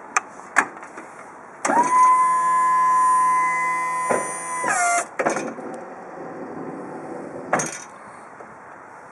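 Manilec ES 420 DL electric pallet stacker's hydraulic pump motor whining steadily for about three seconds, working the initial lift. Near the end of the run the pitch drops and the whine cuts off. It is preceded by a couple of sharp clicks and followed by a shorter, weaker motor run.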